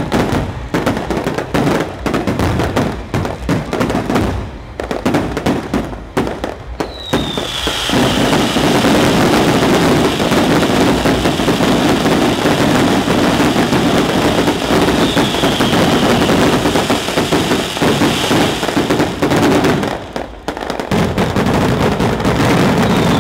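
Fireworks display: for the first several seconds a rapid string of separate bangs, then a dense, unbroken barrage of bangs and crackle that drops out briefly near the end and starts again. A few short falling whistles cut through the barrage.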